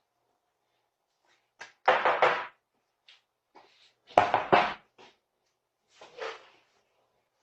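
Someone banging on a door: two loud bursts of several rapid blows about two seconds apart, then a fainter burst near the end.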